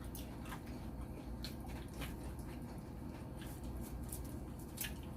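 Eating sounds: faint wet chewing and mouth smacks with scattered small clicks, over a low steady hum.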